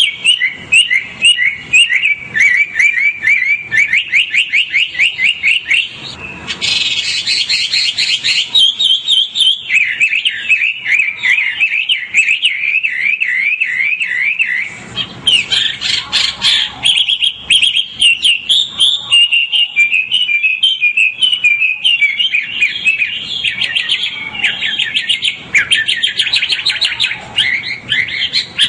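White-rumped shama (murai batu, the wild 'murai hutan') singing a long, varied song: fast runs of repeated whistled notes, switching to a new phrase every few seconds.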